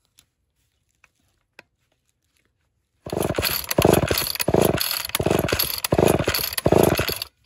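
Homelite XL-12 two-stroke chainsaw engine running for about four seconds, its speed rising and falling about five times, then cutting off abruptly. This is the saw's first run in decades after a carburettor rebuild and new seals, before any tuning.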